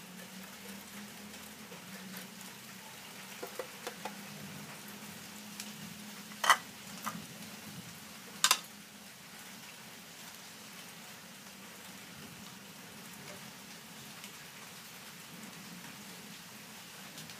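Beaten egg frying in a nonstick pan with a steady, gentle crackling sizzle. Two sharp clicks stand out about two seconds apart midway.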